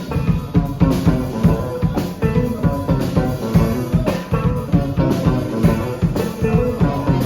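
Live rock band playing an instrumental passage: electric guitar and bass over a steady drum-kit beat.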